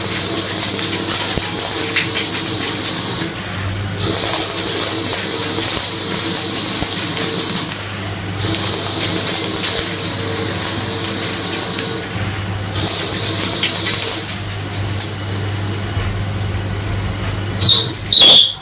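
CNC lathe turning a metal part: the spindle hums steadily while the cutting tool takes repeated passes, each a hissing cut with a high whine lasting three to four seconds, with short breaks between passes. Near the end come two brief, loud, high-pitched sounds.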